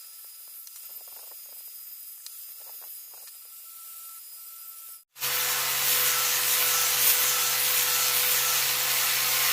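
Faint rubbing and scraping at first; about five seconds in, after a short break, an angle grinder with a flap disc runs loud and steady, sanding the rough cast surface of a Lodge cast-iron skillet.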